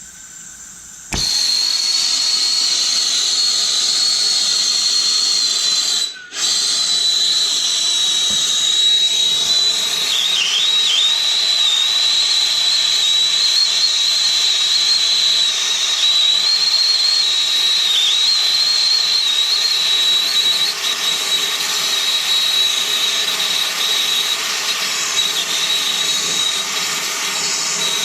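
Soldering torch flame hissing steadily close by, with a high whistle on top, as it heats the steel water heater tank around the leak. It starts abruptly about a second in and cuts out for a moment a few seconds later.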